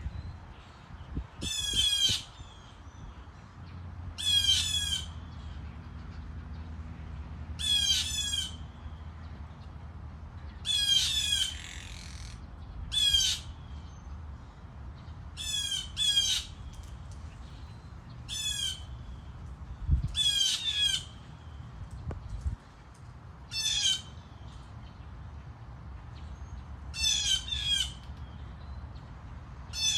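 A bird calling over and over: a short burst of quick, high, descending notes every two to three seconds, over a steady low rumble.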